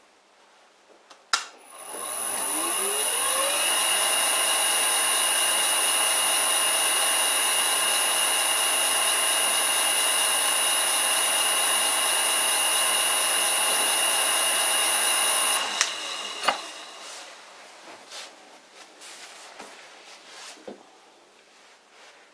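Vintage Karger lathe run by a frequency drive (VFD): a click, then a rising whine as the motor ramps up over about two seconds, and a steady run with a high whine for about twelve seconds before it is switched off and winds down.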